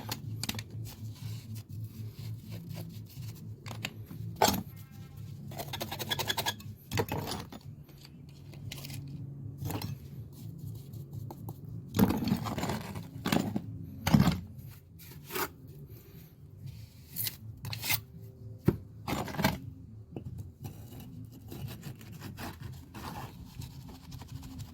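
Steel trowels scraping and sliding wet mortar into a brick joint, with irregular scrapes and sharp metal-on-brick taps.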